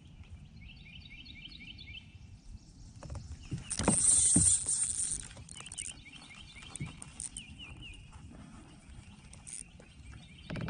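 A cast with a spinning rod about four seconds in: a knock, then line hissing off the reel for about a second and a half, followed by faint clicks from the reel. Rapid repeated chirps sound in the background before and after the cast.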